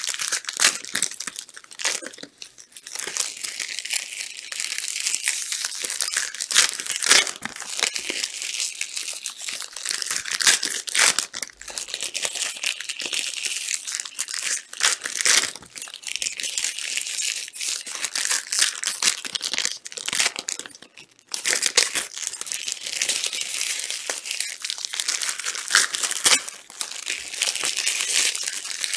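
Plastic trading-card pack wrappers being torn open and crinkled, a continuous rustle full of sharp crinkles, briefly pausing twice.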